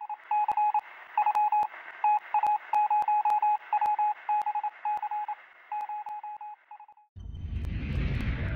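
A Morse-code sound effect: one high beep keyed on and off in short and long pulses over radio-like hiss, with sharp clicks in among it. It stops about seven seconds in, and a deep low rumble comes in near the end.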